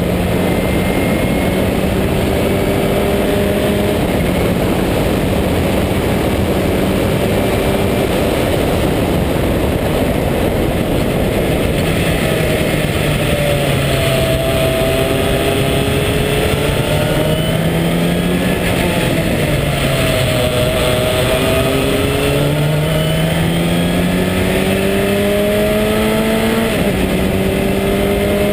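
March 83S Sports 2000 race car's Ford 2.0-litre four-cylinder engine running hard, heard onboard from the open cockpit with heavy wind noise. The engine note holds steady for about twelve seconds, then drops for a corner. It rises again under acceleration, with an upshift near the end.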